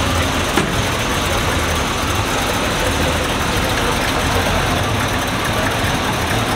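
A vehicle engine idling steadily amid broad, steady background noise, with a single sharp click about half a second in.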